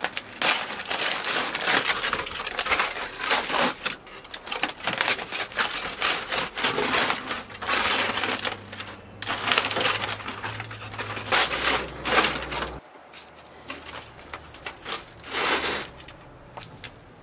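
Aluminium foil crinkling and rustling as hands pull open the wrapping around roasted lamb ribs: a loud, dense crackle for about twelve seconds, then quieter handling with one more burst of crinkling near the end.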